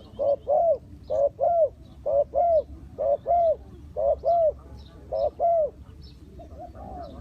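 Spotted dove cooing: six two-note coos about a second apart, then softer, lower coos near the end. Small birds chirp faintly in the background.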